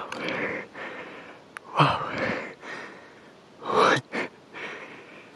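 A person breathing heavily close to the microphone, in about four breathy gasps a second or so apart.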